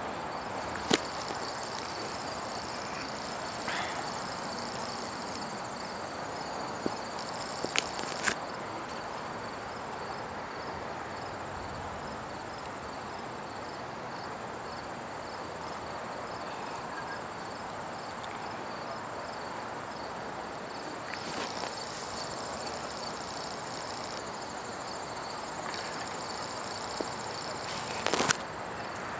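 Insects chirping in a steady, evenly pulsing high trill over a constant outdoor hiss, with a few sharp clicks about a second in, twice around eight seconds, and near the end.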